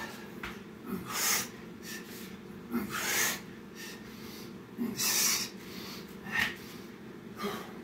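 A man breathing hard from exercise: about five loud, rushing breaths, the longest and loudest about one, three and five seconds in, with shorter ones near the end.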